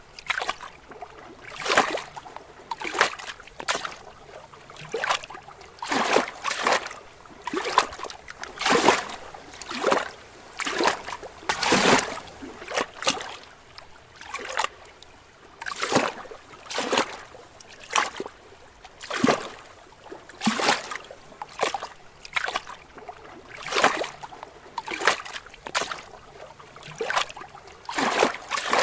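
Small lake waves lapping against rocks: uneven soft splashes about once a second, some louder than others.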